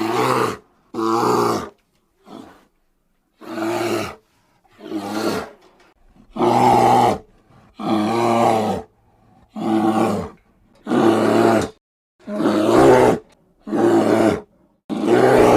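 A bear's roars, offered as sound effects for the extinct Atlas bear: a series of about a dozen short, deep, growling calls, each under a second long, coming roughly every one and a half seconds.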